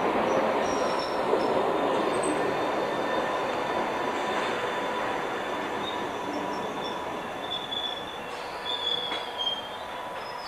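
London Underground D Stock train pulling into a platform and braking to a stop, its running noise fading steadily, with thin high squeals over it as it slows.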